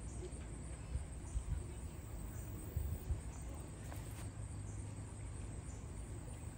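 Outdoor ambience: a steady low rumble on the microphone with a few soft thumps, and a faint high chirp repeating about once a second.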